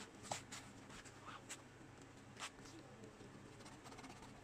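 Near silence: a few faint, brief scrapes and clicks from fingers working on an LCD panel's circuit board and flex cable, over a low steady hum.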